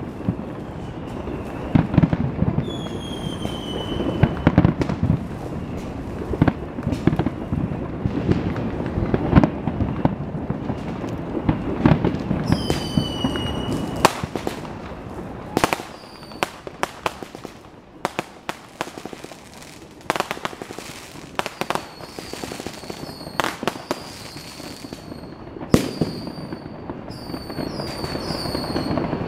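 Fireworks display: aerial shells bursting in a steady barrage of booms and cracks, with several short whistles from whistling shells. The first half is a dense, rumbling barrage; from about halfway the bursts thin out into sharper, separate cracks.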